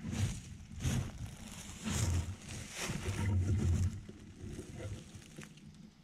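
Footsteps crunching through forest-floor leaf litter, about one step a second, fainter after about four seconds.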